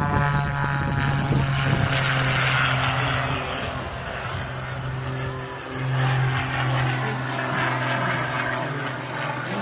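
Single-engine propeller airplane flying past: a steady engine and propeller drone that dips briefly about five and a half seconds in, then swells louder again as the plane climbs away.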